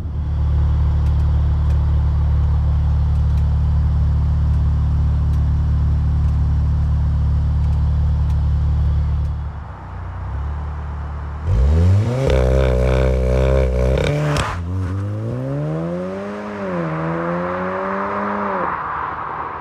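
Volkswagen Golf R's turbocharged four-cylinder engine and resonator-delete exhaust idling with a steady low drone, then accelerating hard away. About eleven seconds in the revs climb sharply. They cut with a crack at the first upshift, climb again through a second gear change, and fade as the car pulls off.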